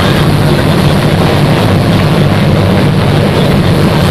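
Amphibious duck boat's engine running with a steady low drone while under way on the water, heard from inside the open passenger cabin.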